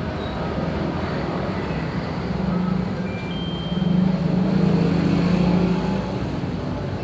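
A motor vehicle engine running steadily, growing louder at about four seconds in and easing off again near six seconds.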